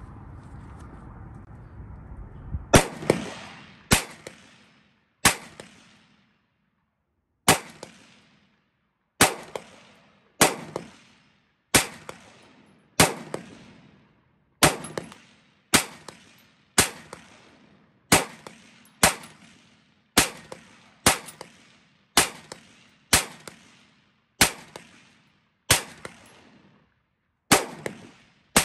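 San Tan Tactical STT-15 AR-15 rifle in .223 Wylde firing about twenty single semi-automatic shots at a steady, unhurried pace, roughly one every second or so, starting about three seconds in. Each shot has a short echoing tail.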